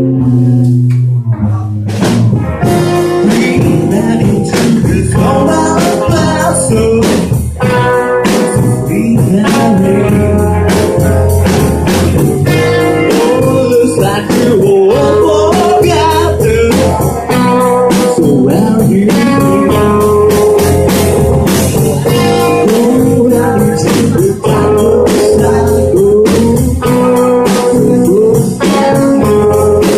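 Live rock band playing loud, with electric guitars, drum kit and singing; a held chord dies away and a fast, driving song with steady drum hits starts about two seconds in.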